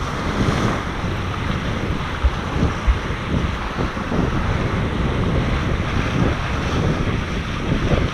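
Wind rumbling and buffeting on an onboard microphone over the steady rush of water past the hulls of a Tornado catamaran under sail, with a couple of brief low thumps from the wind a few seconds in.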